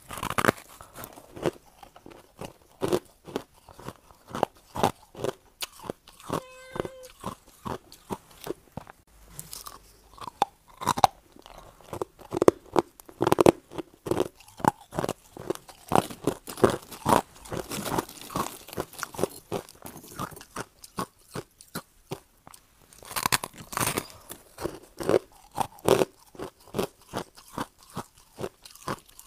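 Close-miked biting and chewing of hard crushed ice: a steady run of rapid, crackling crunches, with one louder bite a little over three-quarters of the way through.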